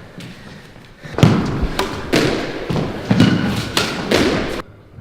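Squash rally: the ball striking rackets and the court walls about seven times in quick succession, each hit echoing in the court. The sound cuts off suddenly shortly before the end.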